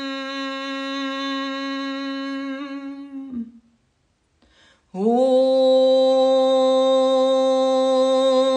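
A woman's voice chanting a long, held Om on one steady note. It fades out about three seconds in, and after a short pause a second Om begins about five seconds in, sliding up briefly into the same note.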